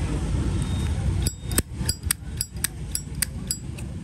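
Metal case of a Zippo lighter giving a quick series of about ten sharp, ringing metallic clicks, three or four a second, starting just over a second in, over a steady low traffic rumble.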